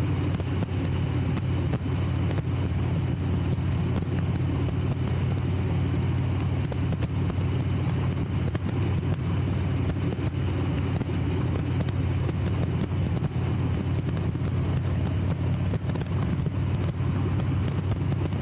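Motorcycle engine running at a steady cruising speed, holding an even pitch, under a continuous rush of wind and road noise.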